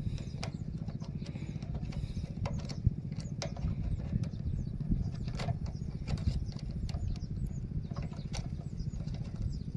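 A small engine running steadily, a low rumble throughout, with scattered clicks of a rubber hose being worked onto a carburettor inlet and birds chirping.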